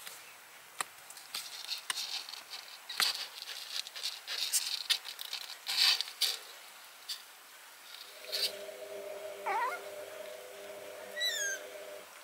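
Young kittens scrabbling and scratching about in a cardboard box, with a couple of thin, high mews in the last few seconds. A steady hum starts about two-thirds of the way through.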